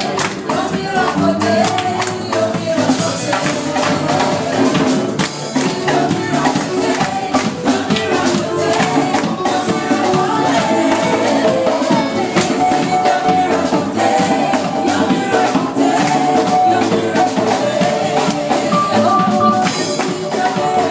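A choir singing live, with many sharp percussive hits keeping the beat under the voices.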